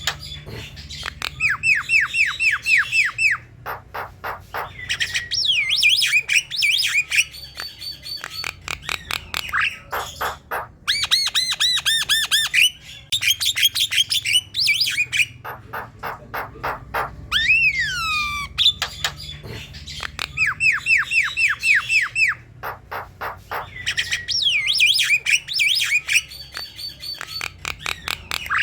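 Javan myna (jalak kebo) in full song: quick runs of short descending whistles and harsh squawky chirps in a busy, varied sequence, the same string of phrases repeating about every 19 seconds.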